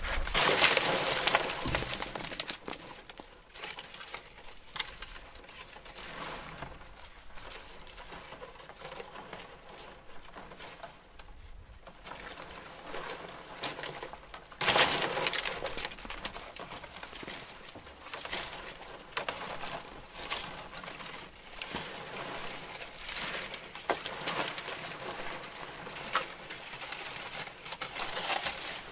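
A dove cooing, over rustling noise that swells just after the start and again about halfway through.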